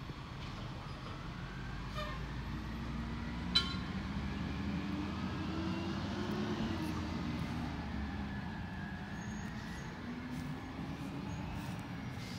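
Garbage truck engine running and revving in the distance, its pitch rising and falling over several seconds, with a single sharp bang about three and a half seconds in.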